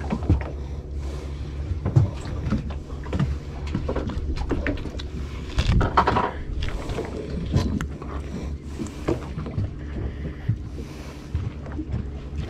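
Boat engine running steadily with a low hum, with scattered knocks and clicks over it.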